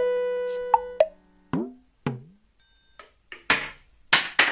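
Added background music: sustained synth-like notes stop about a second in, then two short falling-pitch tones and a few brief noisy bursts.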